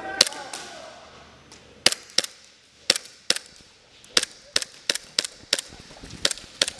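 KWA LM4 gas-blowback airsoft rifle firing semi-auto: one sharp pop at the start, then after a pause about a dozen more, roughly three a second.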